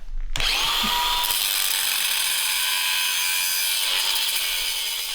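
Angle grinder cutting steel angle iron: the disc starts about half a second in with a brief whine, then a steady harsh grinding that stops abruptly at the end.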